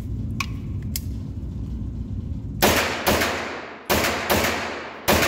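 Five 9mm shots from a Grand Power Stribog pistol-caliber carbine, fired semi-auto in two quick pairs and then a single over about two and a half seconds, each ringing out in the echo of an indoor shooting range. Before the shots there is a low rumble.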